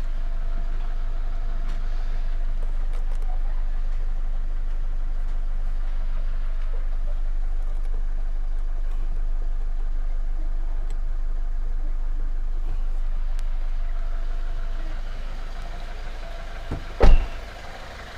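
Toyota Innova V diesel idling, a steady low hum heard from inside the cabin. It gets quieter near the end, and a single sharp knock stands out shortly before the end.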